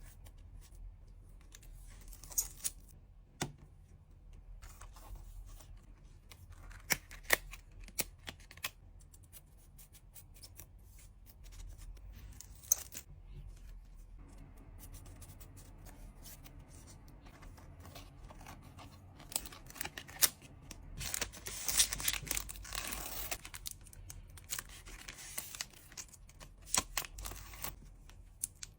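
Hands packing with paper and plastic packaging: scattered sharp taps and clicks, and a denser stretch of tearing and rustling about two-thirds of the way through.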